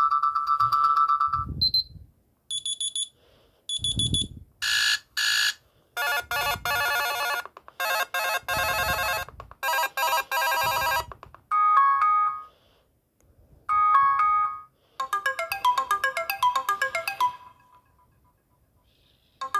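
A string of short built-in alert tones from an S-TELL C552 Android phone, played one after another with brief silences between them. Single beeps and chimes come first, then buzzy chirps, and finally a short melodic jingle that ends in a held note.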